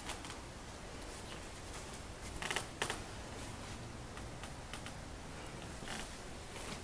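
Steady hiss in an empty room with a few light clicks and knocks. The loudest are two close together about two and a half seconds in, and a couple of fainter ones follow.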